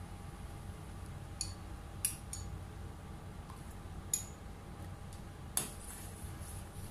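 A spoon clinking against a pot about five times, well spaced, while stirring custard powder into milk, over a steady low hum.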